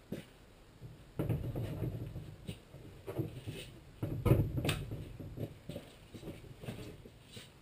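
Irregular knocks, clicks and scraping from hand work with wood and tools, with a longer rough scraping rumble starting about a second in and a louder one at about four seconds.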